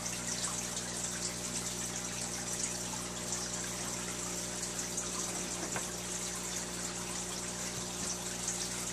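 Aquarium filter pump running: a steady trickle of water over a low, even motor hum.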